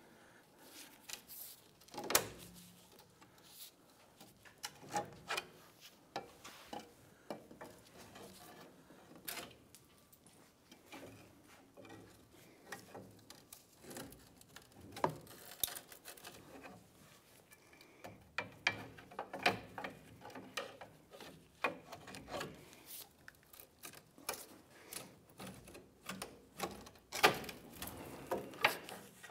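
Steel pry bar scraping and clicking against a rusty Jeep Wrangler rear coil spring as the spring is levered out of its perch. Irregular scrapes and knocks, louder now and then.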